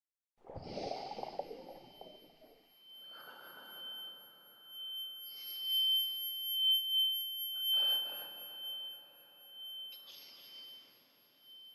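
Electronic film sound effects: a sudden noisy hit about half a second in, then a steady high-pitched ringing tone with a fainter, higher tone above it, under patches of hiss that swell and fade.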